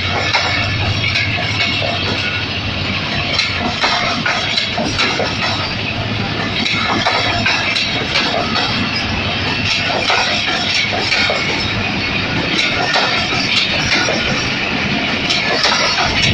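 Passenger train coaches rolling past close by at moderate speed: a steady rumble of steel wheels on the rails with irregular sharp clicks and knocks as the wheels cross rail joints.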